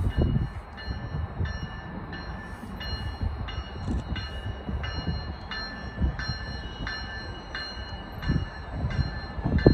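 Bell of an approaching GO Transit commuter train, cab car leading, ringing steadily about twice a second over a low rumble.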